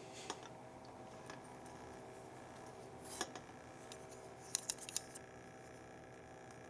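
Faint scraping and a few sharp light clicks of a very sharp knife working on the plastic parts of a computer mouse, over a steady low hum.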